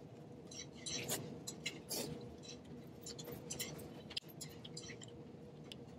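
Quiet eating sounds: metal chopsticks clicking against a stainless-steel bowl of cold buckwheat noodles, and chewing, in short scattered clicks.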